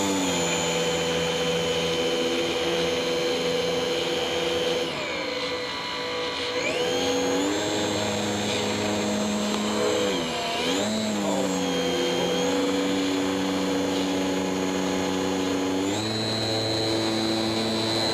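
Small RC airplane's motor and propeller running with a steady whine, its pitch stepping down and back up several times as the throttle is eased and opened: dipping about five seconds in and again about ten seconds in, and climbing near the end.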